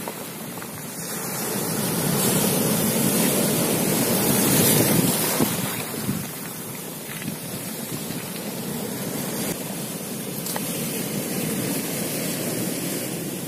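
Sea surf washing in over rocks and pebbles, surging louder for a few seconds near the start and then easing to a steady wash.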